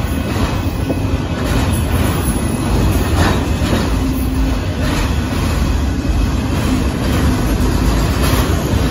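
Freight train of autorack cars rolling past close by: a steady low rumble of steel wheels on rail, with scattered clicks and clanks.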